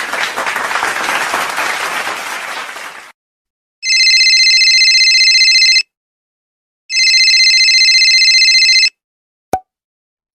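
Applause fading out over the first three seconds, then a telephone bell ringing twice, each ring about two seconds long with a pause of about a second between them, followed by a single short click near the end.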